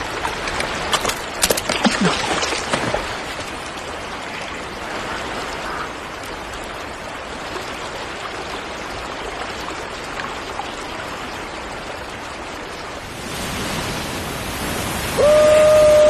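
River water rushing steadily, with splashes and drips in the first few seconds as a wicker fish trap is lifted out of the water. The rush grows louder near the end, from a waterfall, and just before the end a man lets out a loud, long, held shout.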